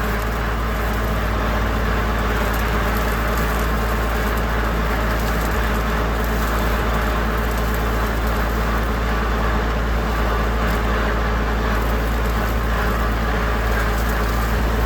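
Tractor engine running steadily under load while pulling a no-till drill through standing cover crop.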